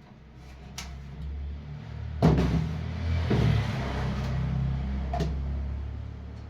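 A low rumble that swells and then fades, with a few sharp knocks, the loudest about two seconds in.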